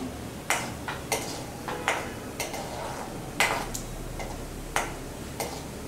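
Metal ladle clinking and scraping against an aluminium kadhai while stirring cashews roasting in ghee, in irregular clicks roughly every half second.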